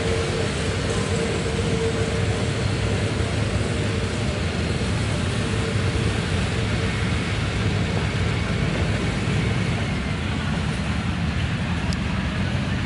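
Steady low outdoor rumble, with a faint hum that fades out about seven seconds in.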